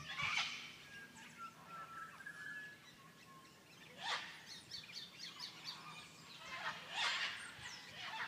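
Birds calling over a quiet rural ambience: a few short, noisy calls near the start, about four seconds in and about seven seconds in, with short thin whistles and a quick run of chirps between them.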